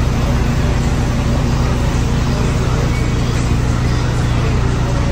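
A steady, loud, low mechanical hum with a constant rumble underneath.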